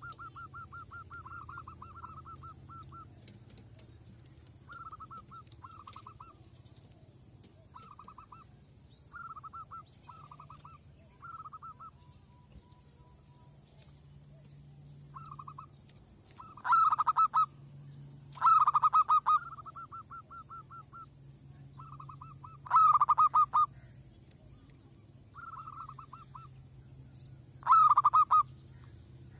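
Zebra dove (merbok) cooing: short bursts of rapid staccato notes, repeated every second or two. The bursts are softer at first, and several much louder ones come in the second half.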